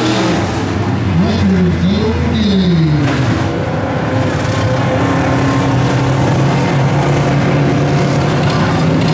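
Several dirt late model race cars' V8 engines running on a dirt oval. The engine pitch rises and falls in the first few seconds as cars pass, then settles into a steadier drone.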